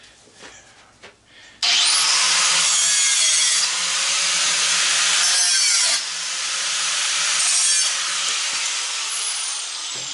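Angle grinder switched on about a second and a half in, spinning up with a rising whine and cutting off the nuts on a pair of bolts, a loud grinding screech that eases briefly about six seconds in. Near the end it lets off and the motor winds down with a falling whine.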